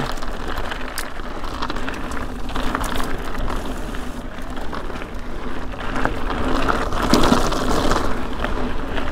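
Ibis Ripmo full-suspension mountain bike descending loose dry dirt singletrack: the knobby tyres crunch and hiss over dirt and gravel, with many small clicks and rattles from the bike and a steady low rumble underneath.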